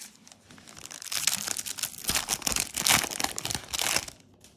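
Foil Yu-Gi-Oh booster pack wrapper crinkling and rustling as it is handled, a dense crackle from about a second in that stops shortly before the end.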